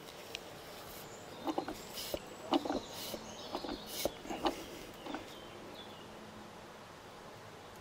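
Diesel injector from a Sofim 8140 engine being pumped on a hand-lever injector tester: a run of short clicks and knocks from the tester, with three brief spray hisses as the injector pops about a second apart. The owner finds that it does not growl the way it should.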